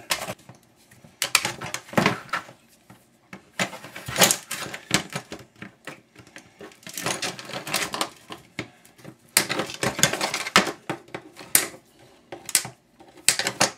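Hand tools clicking and knocking against a fan motor's metal casing as it is forced apart: irregular runs of sharp clicks and knocks with short pauses between them.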